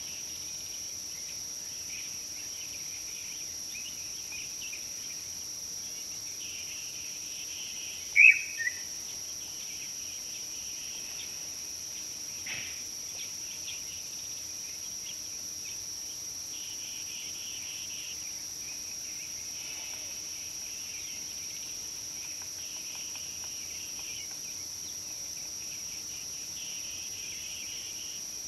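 A steady high insect drone with scattered bird chirps in the bush. About eight seconds in comes one loud, short two-note bird call that falls in pitch.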